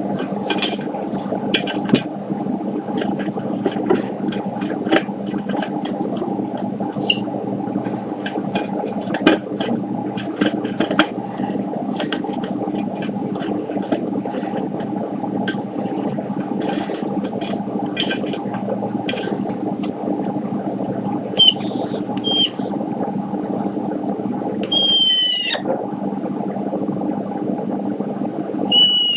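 Sulphur-crested cockatoo drinking from an aluminium drink can, its beak clicking and tapping against the metal many times, with a few short chirps and one longer call near the end, over a steady low hum.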